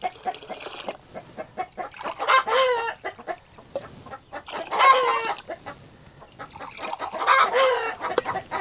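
Chickens clucking, with three drawn-out calls standing out about two and a half, five and seven and a half seconds in.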